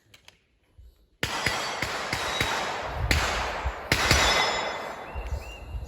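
A revolver firing a string of shots at steel targets. It starts abruptly about a second in, with sharp cracks over a dense ringing wash that dies away near the end.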